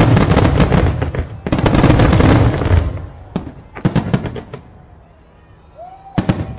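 Aerial fireworks going off: dense, rapid bangs and crackling for the first three seconds, a few scattered cracks, then a lull before a fresh volley of crackling near the end.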